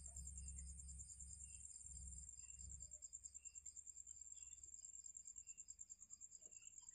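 Crickets chirping in a fast, even pulsing trill, with fainter separate chirps below it. A low rumble is there for the first three seconds and then fades.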